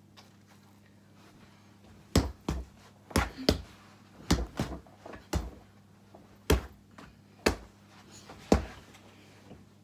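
Bare fists punching a Gallant punch bag: about ten sharp thuds, some in quick pairs, starting about two seconds in. A faint steady hum runs underneath.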